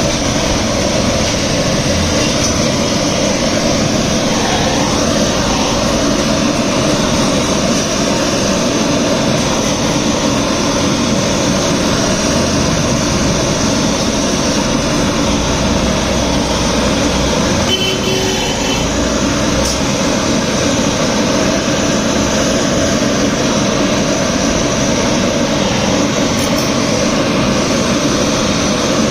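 Steady, loud mechanical rushing noise with no break, with a short faint whine about eighteen seconds in.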